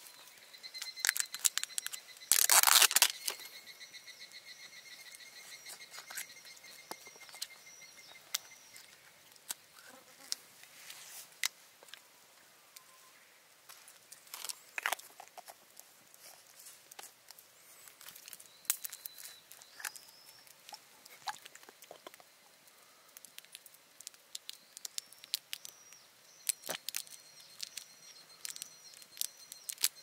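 Insects singing in a summer evening chorus: a steady high trill with repeated short chirps, strongest in the first few seconds and again near the end. Scattered light clicks and one brief loud noise about two and a half seconds in.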